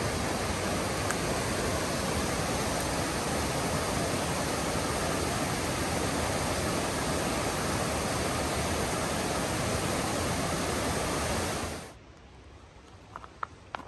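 Loud, steady rushing noise, even and unbroken, that cuts off abruptly about twelve seconds in, leaving a faint background with a few small clicks.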